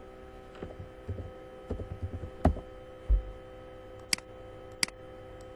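Computer mouse and keyboard being worked: soft thuds in the first few seconds, then two sharp clicks about four and five seconds in, over a steady electrical hum.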